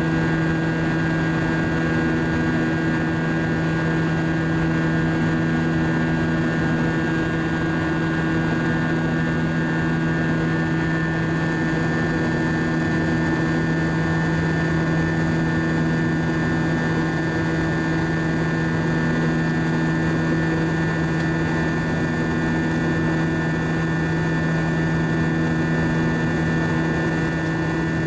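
Steady cabin noise of an Airbus A320-232 in flight: the constant drone of its IAE V2500 turbofan engines and rushing airflow, with several low steady hum tones.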